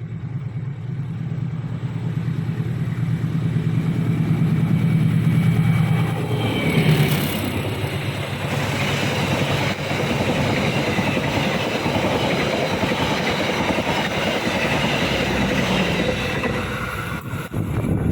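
A train going through a station. A diesel locomotive's engine hum grows louder over the first few seconds. About seven seconds in there is a brief high burst, then the steady rolling noise of the carriages passing on the rails.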